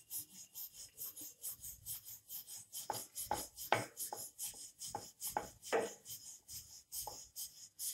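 Wooden rolling pin rolled back and forth over methi paratha dough on a wooden board, giving a steady run of short rubbing strokes, about two to three a second.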